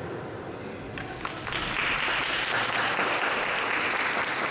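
Audience applauding: a few scattered claps about a second in, then steady clapping.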